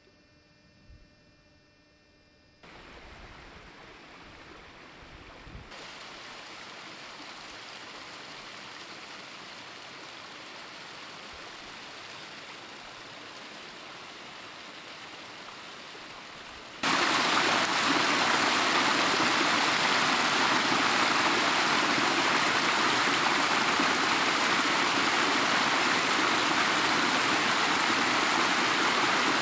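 A small hill stream running over rocks: a steady hiss of water, faint at first and then much louder from a little past halfway.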